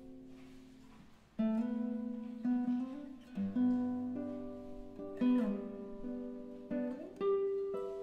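Rohan Lowe classical guitar played solo: held notes ring and fade for the first second or so, then a loud new phrase begins about a second and a half in, with plucked notes and chords that ring over one another.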